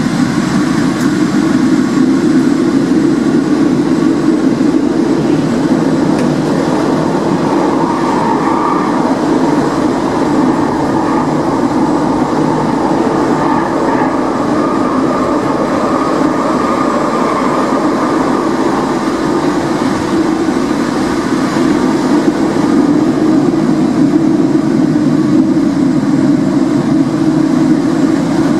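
A Porto Metro light-rail vehicle running at speed through a tunnel, heard from the front cab. Its wheels and running gear make a steady, loud rumble, with a fainter higher whine that comes and goes.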